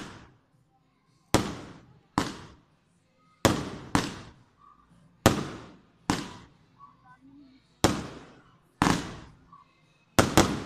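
Fireworks going off: about ten sharp bangs of aerial shells bursting, irregularly spaced, some coming in quick pairs, each fading out over about half a second.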